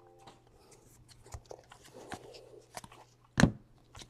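Baseball trading cards being flipped through by hand, with faint slides and rustles of card against card and one sharper click about three and a half seconds in.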